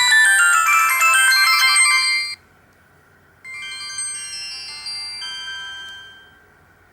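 Samsung SGH-C417 ringtones played on a Sony Ericsson J210i mobile phone. A busy tune of many notes at once cuts off suddenly about two and a half seconds in. After a second's pause a quieter, sparser tune starts and dies away near the end.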